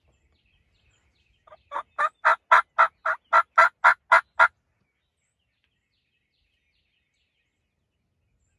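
Turkey yelping: a series of about a dozen evenly spaced yelps, roughly four a second, building in loudness over the first few and stopping after about three seconds.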